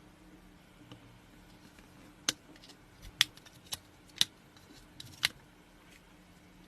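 About five sharp, short clicks, spaced roughly half a second to a second apart, over a faint steady hum.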